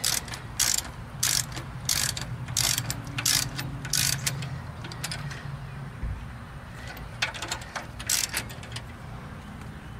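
Socket wrench ratchet clicking, with small metal tool clinks, as nuts are run down on an engine's rocker shaft. The clicks come in bursts through the first few seconds and again near the end.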